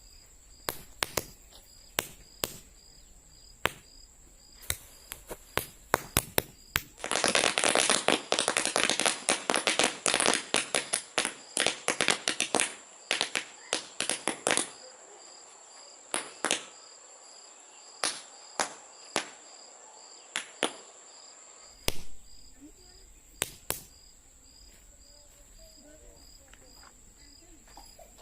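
Paper roll caps going off: scattered sharp single pops, then a dense rapid crackle of pops for about five seconds, thinning back to scattered pops.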